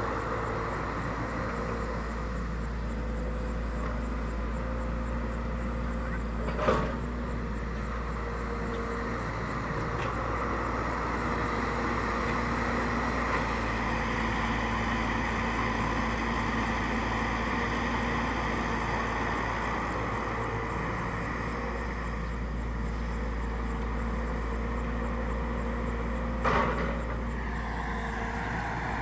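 Excavator's diesel engine running steadily, with two sharp knocks, one about seven seconds in and one near the end.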